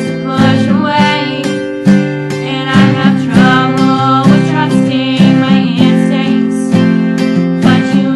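Acoustic guitar being strummed, playing a song's chords.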